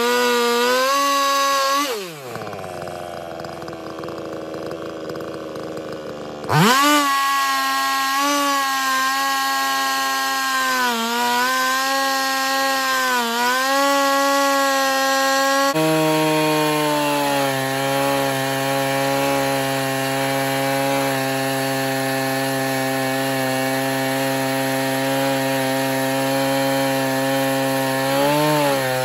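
Husqvarna 395XP two-stroke chainsaw ripping a fir log lengthwise on an Alaskan chainsaw mill, running at high revs with its pitch sagging now and then as the chain loads up in the cut. About two seconds in the throttle is let off and the engine falls to idle for about four seconds, then revs straight back up and the cut goes on.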